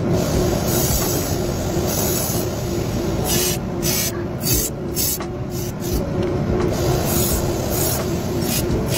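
Knife blade being ground on a motor-driven sharpening wheel: a steady machine hum under a hiss of steel on abrasive that comes and goes with each pass of the blade.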